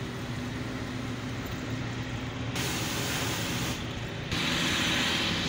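Hino truck's diesel engine running while driving, heard from inside the cab, with a steady low drone. Two stretches of loud hissing come in abruptly, one about halfway and a louder one near the end.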